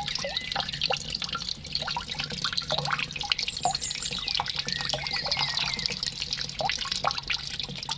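Water dripping and trickling with quick plinking drops, mixed with scattered short bird chirps and whistles, over a steady low hum.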